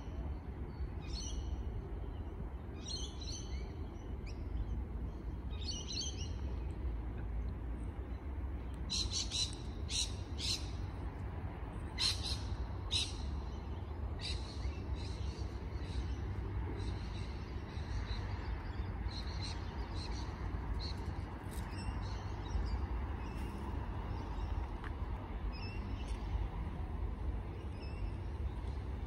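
Wild birds chirping and calling in short bursts, with a quicker run of sharp calls about nine to thirteen seconds in, over a steady low rumble.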